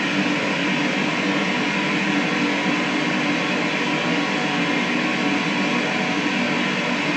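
Steady rushing static from an ITC portal (spirit-box style radio/noise sweep) session, run as the answer channel to a question put to a supposed spirit.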